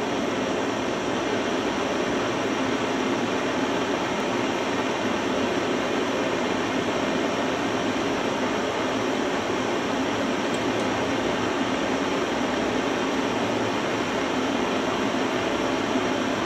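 Handheld gas torch burning with a steady, even hiss, its flame held on a thin copper strip.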